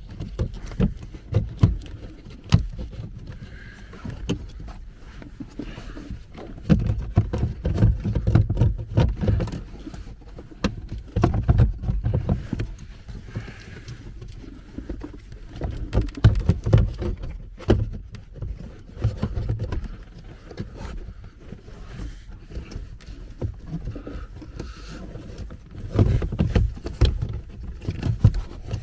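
Irregular plastic knocks, clicks and rubbing as a car's heater blower fan is worked by hand out through a gap under the dashboard, with stretches of low rumbling handling noise.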